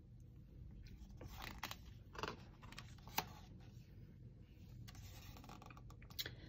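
Faint rustle and scrape of a picture book's paper page being turned by hand, with a light click about three seconds in.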